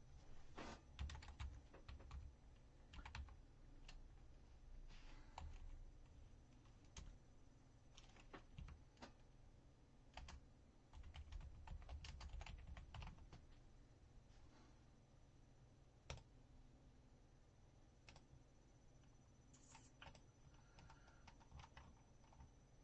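Faint computer keyboard typing and clicking in irregular clusters, busiest in the first half and thinning to occasional single clicks later.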